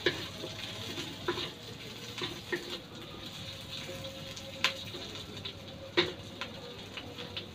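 Chopped onion and garlic sautéing in oil in a stainless steel wok, a low steady sizzle, while a wooden spatula stirs and scrapes them and knocks against the pan several times, most sharply about four and a half and six seconds in.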